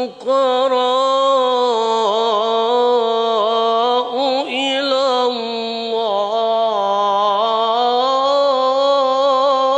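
A male Quran reciter chanting in the melodic mujawwad style, sustaining long ornamented notes with wavering pitch. The line breaks briefly about four seconds in with a sliding turn, then carries on held.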